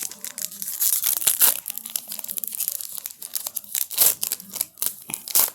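Wrapper of a baseball card pack crinkling and tearing as the cards are handled, a dense run of sharp crackles.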